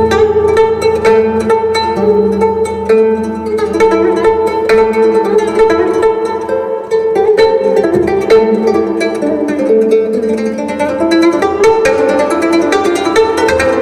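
Instrumental music led by plucked strings: a run of quick picked notes over steady held tones.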